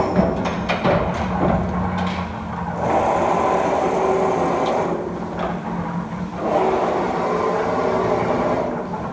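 Mechanical CNC turret punch press punching holes in 1.2 mm stainless steel sheet, set to about sixty hits a minute: repeated sharp punching knocks over the steady running of the machine.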